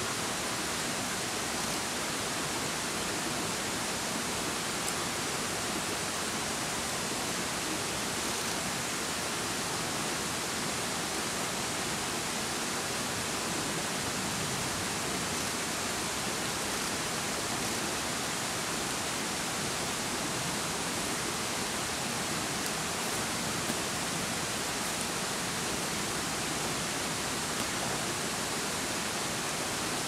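Steady, even hiss with no birdsong heard.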